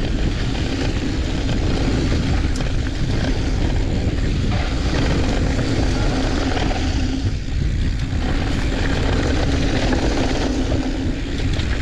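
Wind buffeting the camera's microphone on a fast mountain-bike descent, a loud steady rush, with the tyres rolling over loose, dusty dirt singletrack underneath.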